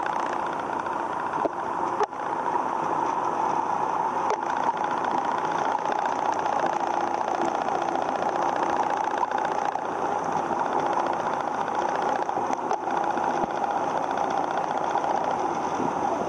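Steady mechanical hum, with a few faint clicks.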